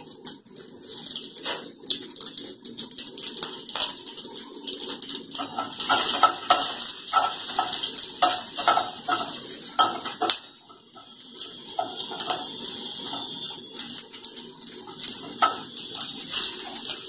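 Oil sizzling in a nonstick kadai as a metal spatula stirs the frying tempering, scraping and clinking against the pan in quick irregular strokes. The stirring gets busier about a third of the way in, with a short lull past the middle.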